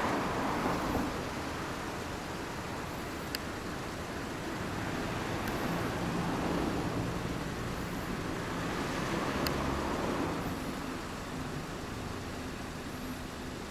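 Road traffic going by: passing vehicles swell and fade, loudest at the start and again around the middle.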